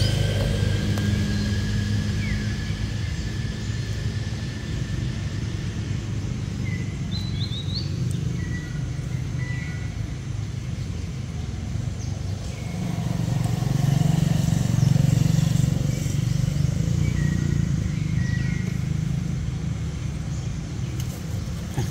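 A motor vehicle's engine running nearby, a steady low rumble that swells for a few seconds past the middle. A few short bird chirps sound over it.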